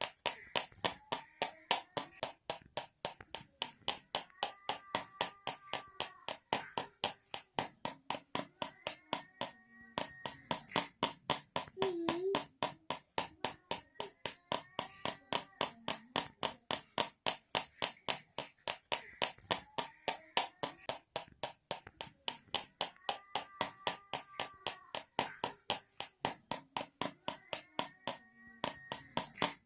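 Homemade rattle made of two tins shaken in a steady rhythm, giving sharp rattling clicks about three times a second.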